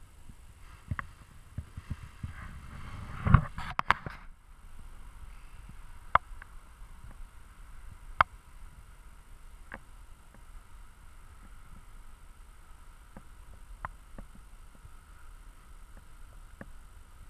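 Wind rumbling on the microphone, with scattered sharp clicks and a short run of louder knocks about three to four seconds in.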